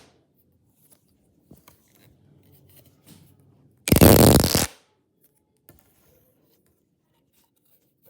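Plastic pop tube fidget toy being stretched, its ribbed sections snapping open in a quick run of crackling pops lasting under a second, about four seconds in. Faint plastic handling noise around it.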